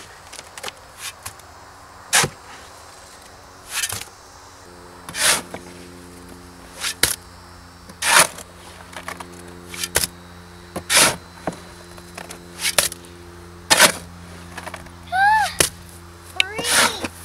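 Repeated sharp knocks, roughly one every second or so, as freshly poured concrete in a foundation hole is worked to settle it. A steady low hum comes in about five seconds in, and a short high rising-and-falling squeal is heard near the end.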